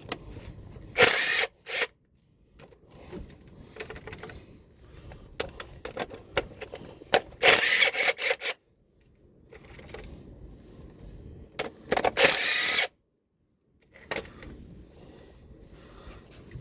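Three short, loud bursts of a socket tool undoing the 13 mm bolts that hold the crankshaft pulley, with quieter clatter of metal between them.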